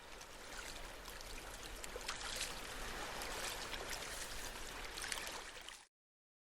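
Wood fire burning in a titanium fire pit, hissing steadily with many small crackles and snaps; the sound cuts off abruptly near the end.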